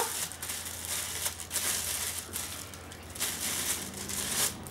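Clear plastic packaging crinkling and rustling in repeated bursts as it is handled and pulled off a part, stopping shortly before the end.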